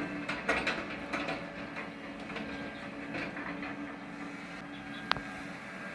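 Backhoe working: its engine runs steadily under a cluster of metallic clanks and knocks in the first second and a half, with a single sharp click about five seconds in.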